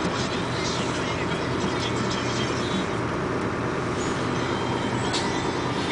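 Steady running noise of a vehicle driving along a road at a constant pace, engine hum and tyre noise heard from on board.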